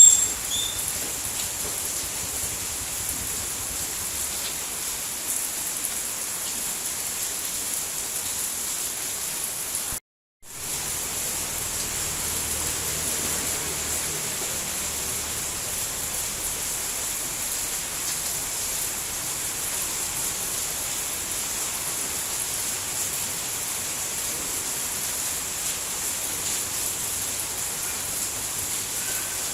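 Steady, even rainfall. There is a brief sharp sound at the very start, and about ten seconds in the sound cuts out completely for about half a second before coming back.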